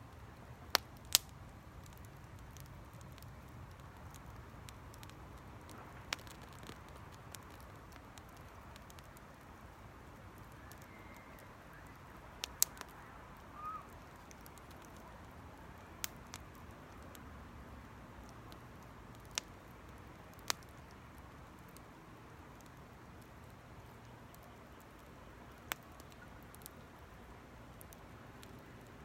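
Small wood campfire burning with a low steady hiss and irregular sharp crackles and pops, about a dozen over the stretch, two of the loudest about a second in.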